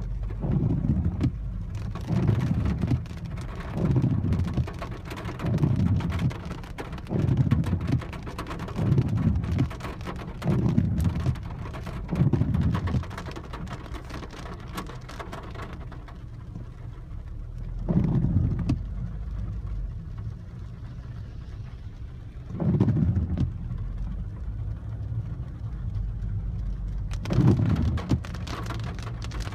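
Rain on a Peugeot 408 heard from inside the cabin over a low engine and road hum, with the windshield wipers swishing across the glass. The sweeps come about every one and a half seconds for the first half, then only every four to five seconds, as on an intermittent setting.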